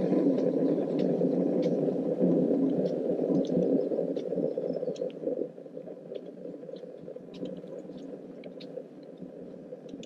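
Steady low rumbling noise on the microphone of a camera carried along a forest trail, with faint scattered ticks; the rumble drops in level about halfway through.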